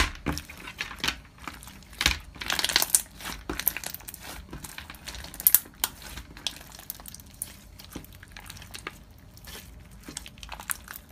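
Slime being squished and stretched by hand, making irregular clicking and crackling pops, with a denser run of crackles about two to three seconds in.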